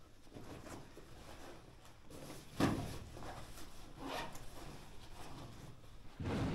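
Rustling and knocking of camping gear being handled, with a sharp thump about two and a half seconds in, a lighter one about a second later, and a heavy low thump near the end that leaves a low rumble.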